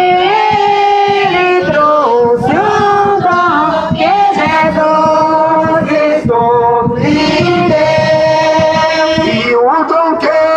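A man singing a devotional song through a microphone, in long held notes that glide up and down between pitches.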